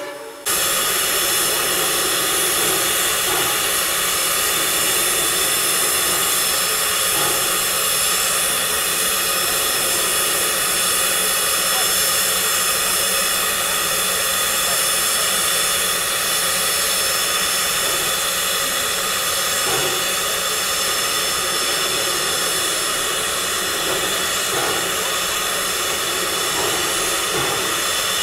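Steady hiss of steam from a standing live steam locomotive, Texas State Railroad #30, a 1917 Baldwin 2-8-2 Mikado, with a few faint steady tones running through the hiss.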